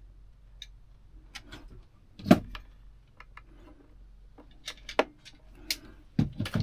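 Scattered small clicks and taps of hands working on electrical wiring and connectors, with one louder knock a little over two seconds in, over a faint steady low hum.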